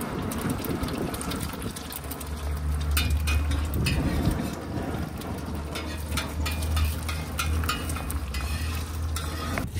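Eggs sizzling in oil on a steel disc pan, with a metal spatula clicking and scraping against the pan many times. A steady low hum sets in about two seconds in and runs almost to the end.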